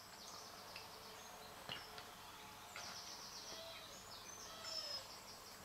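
Dogs whining faintly, a few groups of short high-pitched whines with quiet gaps between, in a quiet room.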